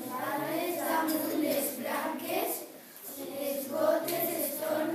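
A group of young children's voices together in unison, with a short break about three seconds in.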